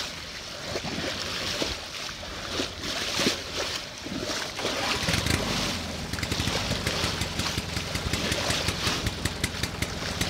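Water rushing and splashing along a moving sailboat's hull in choppy sea, with wind rumbling and crackling on the microphone; the rumble gets heavier about halfway through.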